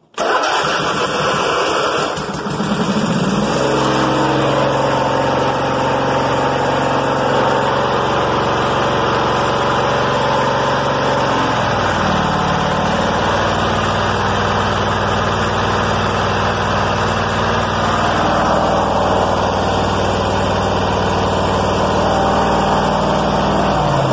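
Briggs & Stratton twin-cylinder engine on a Craftsman YT4000 riding mower, starting at once and rising in pitch over the first few seconds, then running steadily; its note changes about halfway through. The owner thought it sounded like a miss, and inline spark testers show a weak spark on one cylinder.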